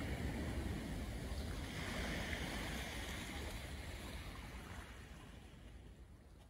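Small waves washing onto a shingle beach, with wind rumbling on the microphone; the sound fades away over the last few seconds.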